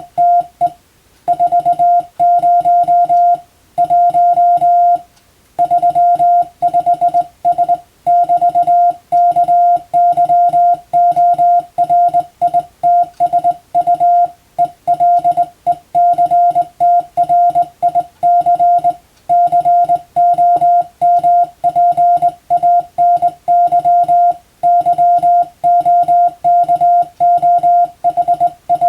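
Morse code (CW) keyed by hand as a single steady mid-pitched beep, switching on and off in quick dots and dashes, with short gaps between letters and a few longer pauses between words. It is sending European-letter telegram practice text at radiotelegraph-exam speed.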